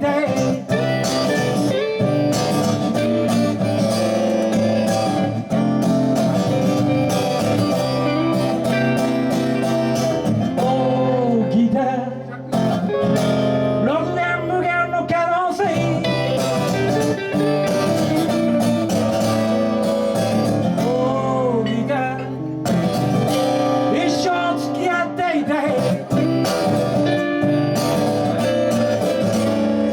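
Live band music led by guitar, with a voice singing at times over sustained chords.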